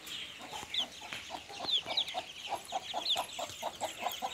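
Country chickens: one clucking in quick, even notes, several a second, with a few thin, high chick peeps over it.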